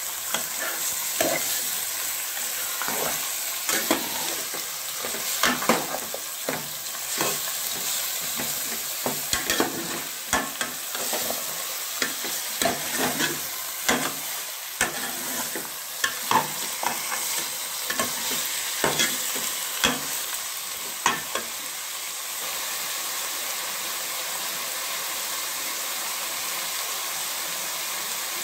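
Food sizzling as it fries in oil in a metal pot, with a spoon stirring and scraping against the pot in quick, irregular knocks. About three-quarters of the way through the stirring stops and the steady sizzle goes on alone.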